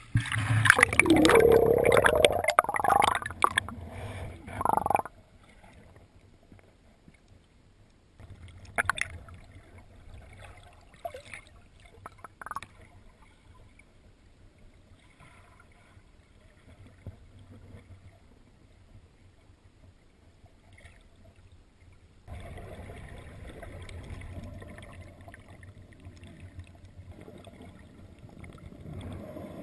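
Water splashing and sloshing over a camera held at the surface for about five seconds. Then muffled underwater sound with a few sharp knocks and gurgles. Near the end a steady low rush of water.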